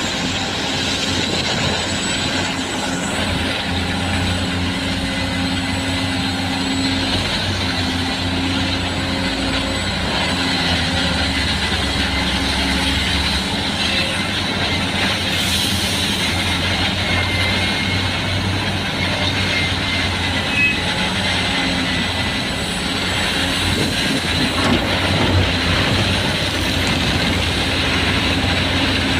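A large diesel engine running steadily with a low, even hum.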